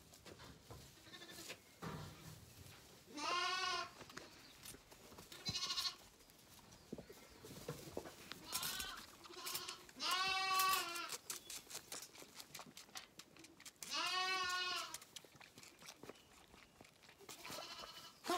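Zwartbles lambs bleating about five times, each bleat under a second long, at bottle-feeding time. Soft rustling and clicks in the straw bedding between the bleats.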